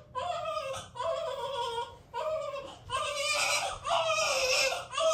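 One-day-old newborn baby crying: a string of about five wails, each about a second long, with short catches of breath between them.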